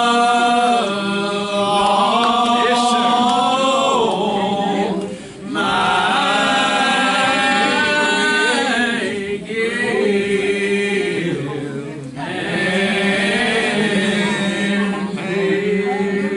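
Voices singing a slow hymn in long, held notes, with short breaks between phrases about five and twelve seconds in.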